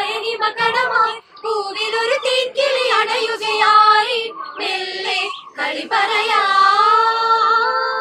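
A group of young women singing together in short phrases, ending on a long held note from about three-quarters of the way in.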